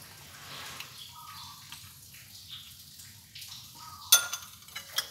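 Quiet handling of small kitchen items, with one sharp clink a little after four seconds in and a few lighter clicks after it, as a metal spoon touches small ceramic ingredient bowls.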